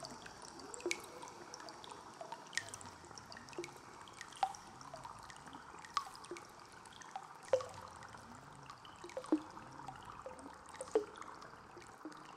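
Water dripping and trickling: separate drops plopping irregularly, about once or twice a second, over a soft steady rush of running water.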